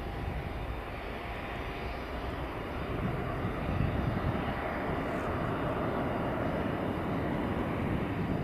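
Airbus A319-112's CFM56 turbofan engines at takeoff thrust just after lift-off: a steady low rumble from the climbing airliner that swells slightly a few seconds in.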